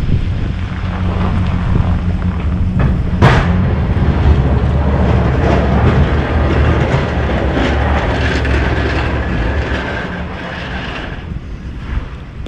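Engine of a snowplowing vehicle running steadily, with a sharp clank about three seconds in. A rushing noise swells in the second half as the engine sound fades away near the end.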